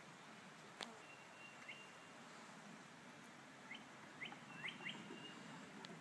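Faint songbird calls: a thin, steady whistled note near the start and again around the middle, and a handful of short rising chirps in the second half, over a quiet outdoor hiss. A single sharp click about a second in.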